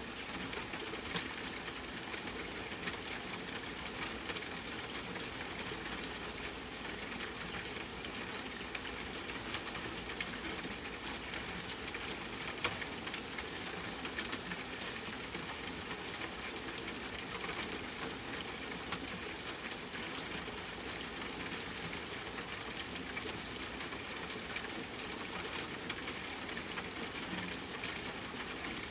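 Steady rain with many small drops ticking and pattering on a surface, even throughout.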